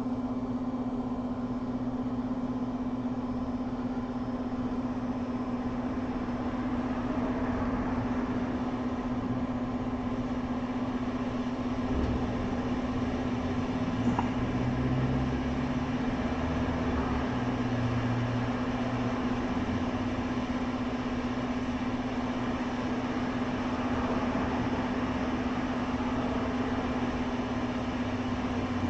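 Hot air rework station blowing steadily, turned up high, with a constant low hum under the rush of air, while it reflows a replacement touch IC chip onto an iPhone 6 Plus logic board.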